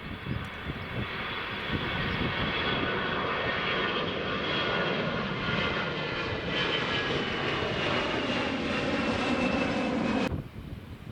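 Airbus A320-214's CFM56 turbofan engines at takeoff thrust: a loud, steady jet engine noise with a high whine that slowly falls in pitch as the airliner passes. It stops abruptly about a second before the end.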